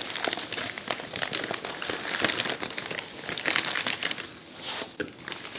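Florist's paper wrapping around a bouquet crinkling and rustling as it is unfolded and pulled open, a busy run of crackles that thins out about four seconds in.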